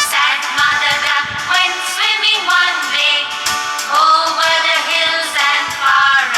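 Nursery-rhyme song: a high sung voice carrying the melody over a music backing track, the singing coming in right after an instrumental passage.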